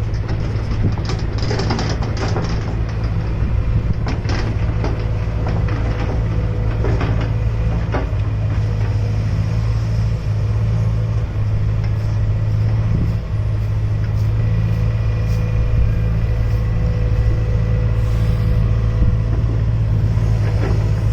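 Excavator's diesel engine running steadily with a deep hum, with scattered short knocks and clatters from the machine at work, most of them in the first few seconds.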